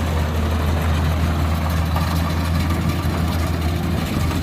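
Kubota DC60 combine harvester's diesel engine running at a steady speed, a constant low drone.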